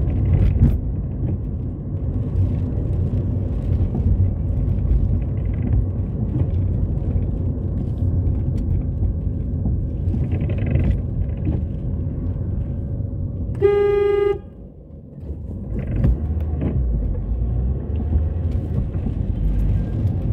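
Steady low road and engine noise inside a moving car's cabin, with one short car horn toot about two-thirds of the way through, after which the noise drops briefly.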